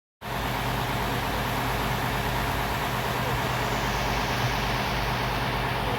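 Heavy machinery running steadily with a low engine-like hum, starting just after the opening.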